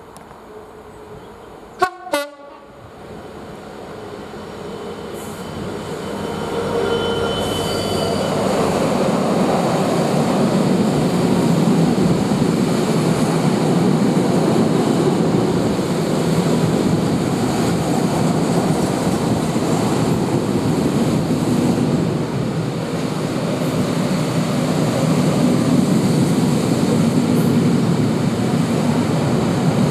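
Class 66 diesel locomotive sounding its horn as it approaches, heard as faint steady tones a few seconds in, then the loud steady rumble of its two-stroke V12 diesel engine and the loaded stone wagons rolling past. Two sharp knocks come about two seconds in.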